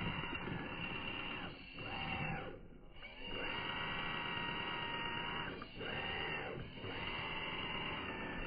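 Small electric RC crawler's motor and gear drivetrain whining as it drives, cutting out briefly about four times as the throttle is let off, the longest break about three seconds in.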